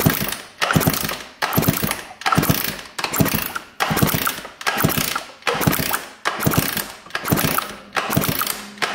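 Kawasaki KX125 two-stroke being kicked over by its kick-starter about a dozen times in a row, a little under one kick a second. With the spark plug out the engine has no compression, so each kick is a free, ratchety spin of the kick-start gear and crank. It is kicked over to check for spark, and it has a strong spark.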